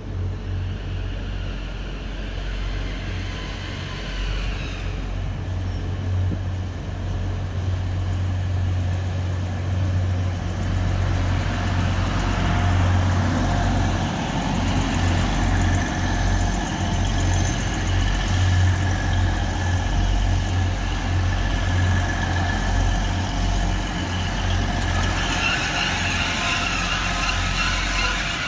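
Grand Central Class 180 diesel multiple unit passing slowly close by: a steady low drone from its underfloor diesel engines, growing louder towards the middle, with a high squeal near the start and again near the end.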